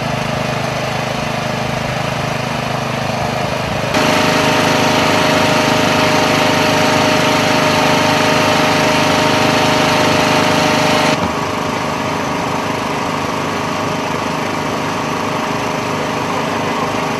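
A steady engine drone running throughout. It changes abruptly in pitch and loudness about four seconds in and again about eleven seconds in.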